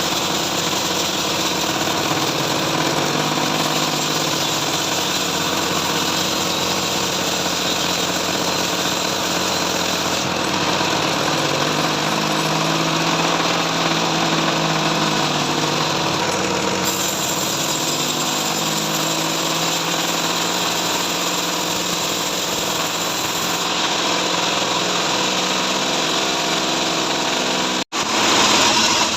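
Portable bandsaw sawmill running steadily while sawing trembesi (rain tree) wood, its engine note continuous. The sound cuts out for an instant near the end.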